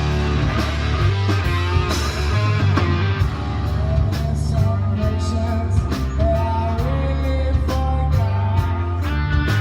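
Rock music: guitar over a steady bass line and drums, with a melodic line moving above them.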